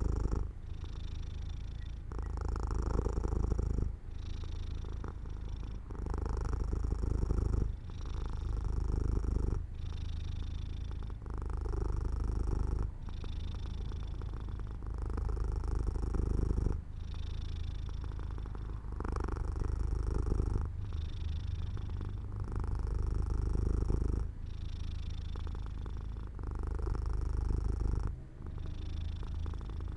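Domestic cat purring continuously, the purr switching between in-breath and out-breath phases about every two seconds.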